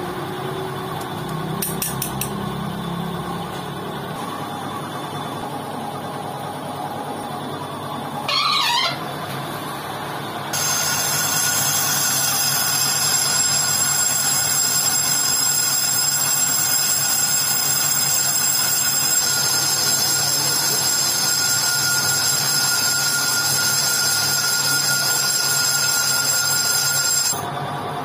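Metal lathe turning a motorcycle wheel hub while the cutting tool resurfaces the inside of the brake drum: steady machine running with thin, high-pitched ringing from the cut. A brief squeal comes about eight seconds in, and from about ten seconds in the cutting is louder and shriller until shortly before the end.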